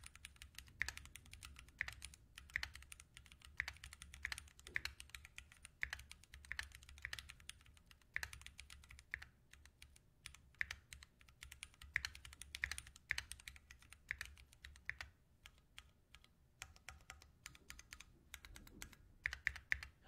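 Typing on a Keychron Q1 gasket-mounted mechanical keyboard with Gateron Phantom Brown tactile switches and double-shot ABS keycaps: a steady stream of soft keystrokes, very quiet thanks to the sound-dampening material.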